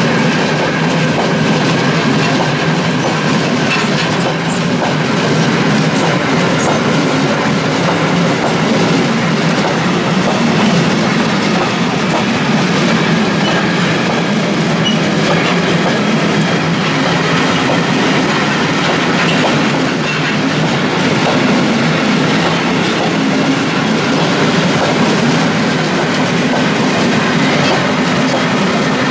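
A freight train of Hbbillns covered sliding-wall wagons rolling past close by: a loud, steady rumble of steel wheels on the rails.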